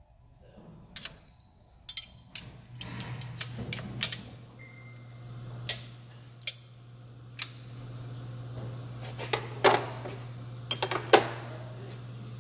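Sharp metal clinks and taps of a 12 mm wrench working the distributor's top mounting bolt, in irregular clusters, the loudest near the end. A steady low hum comes in about three seconds in.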